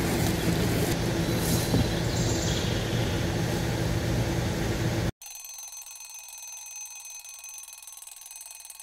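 Outdoor background noise with a steady low hum for about five seconds. Then an abrupt cut to a quieter, steady electronic ringing sound effect like an alarm clock.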